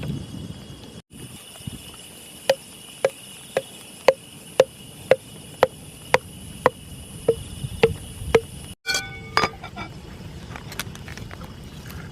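About a dozen sharp, ringing knocks of a hard object being struck, evenly spaced about two a second, then a few quicker rattling clicks; a steady high thin whine runs underneath.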